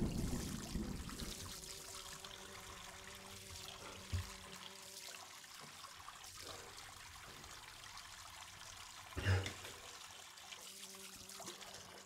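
Tap water trickling faintly over hands at a sink, over a faint low steady drone. Two dull low thumps stand out, about four seconds and nine seconds in.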